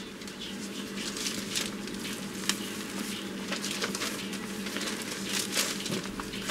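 Newspapers being handled and sorted, with irregular paper rustling and light taps over a steady low hum.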